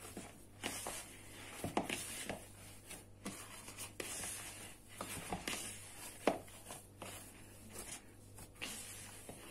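Hand kneading and squeezing soft, oily cookie dough in a plastic bowl: irregular soft squishing and rubbing, with now and then a knock against the bowl. A faint steady low hum runs underneath.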